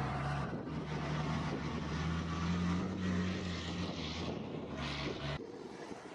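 Engine of a heavy farm machine or truck running steadily, its pitch rising slightly and easing back; the sound cuts off suddenly about five seconds in.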